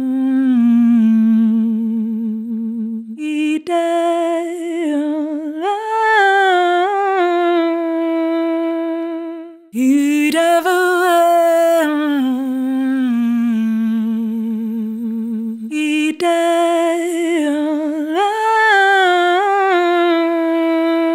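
Solo vocal track singing long, wordless held notes with vibrato in three phrases, beginning about three, ten and sixteen seconds in, heard through the W.A. Production VocalShaper vocal-processing plugin.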